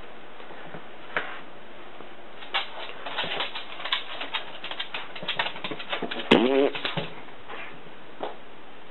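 A dog's claws clicking and tapping on a wooden floor as it walks and turns, in quick irregular runs. About six seconds in there is one brief, louder pitched sound with a wavering tone.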